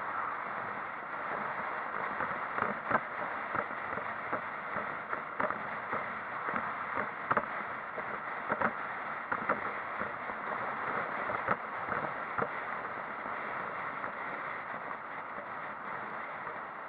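Steady driving noise of a road vehicle on the move, with scattered short knocks and clicks through it.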